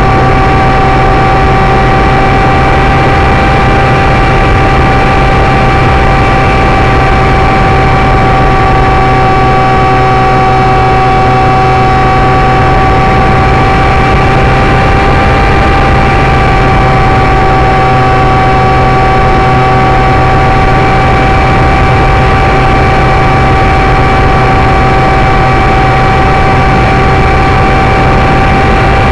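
Electric motor and propeller of a Parkzone Icon RC seaplane, recorded from on board in flight: a loud, steady whine of several fixed tones over a rush of air noise.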